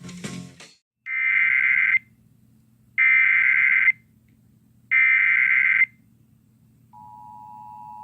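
Emergency Alert System SAME header: three warbling digital data bursts, each just under a second long and about a second apart, after a brief crackle at the start. About seven seconds in, the steady attention tone of the next severe thunderstorm warning begins and holds, over a faint low hum.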